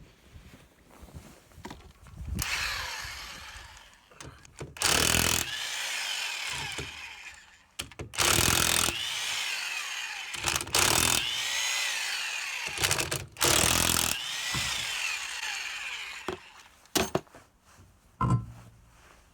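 Mastercraft 7.5A corded electric impact wrench run in several bursts, loudest about five, eight, eleven and thirteen seconds in, with its motor whine rising and falling between them.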